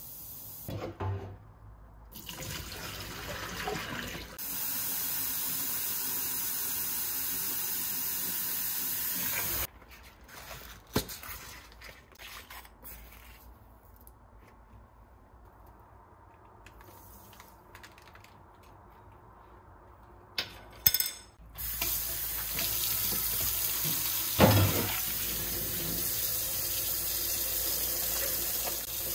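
Kitchen tap running into a pot in the sink, filling it with warm water. The water runs twice, for about five seconds and then again through the last third, with quieter handling clicks between.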